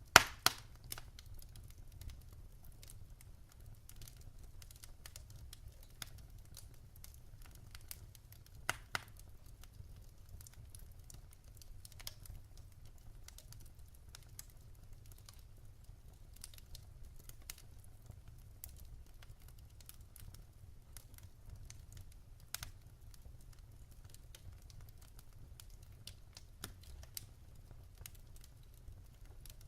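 Wood fire crackling in a fireplace: a soft steady background with scattered small crackles and a few louder sharp pops, the strongest just at the start and again about 9 and 22 seconds in.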